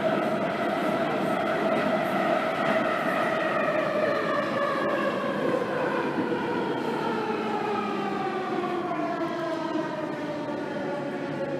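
Underground train running, its motor whine of several stacked tones falling slowly and steadily in pitch as the train slows, over a steady rumble.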